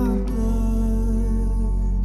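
Soundtrack music holding a steady sustained chord; a gliding sung note fades out just after the start.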